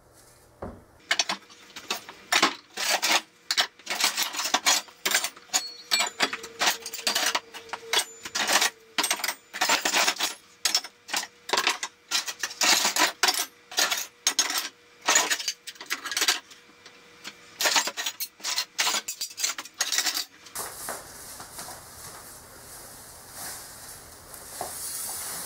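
Pieces of scrap steel dropped one after another into a plastic tote: a dense run of metal clanks and clinks for about twenty seconds. A soft, steady hiss follows for the last few seconds.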